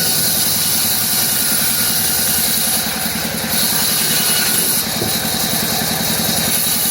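CNC wood router running while carving a wooden door panel: a steady machine hum with a rapid even pulse and a constant high hiss.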